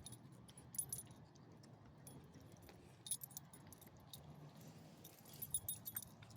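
Light metal jingling in three short clusters, a couple of seconds apart, over a faint low background hum.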